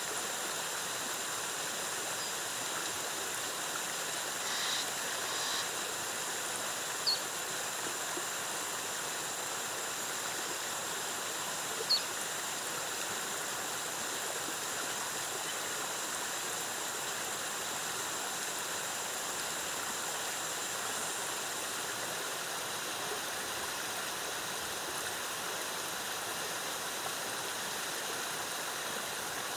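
Waterfall cascading into a pool, a steady rushing of water. Two short, high-pitched chirps stand out, about seven and twelve seconds in.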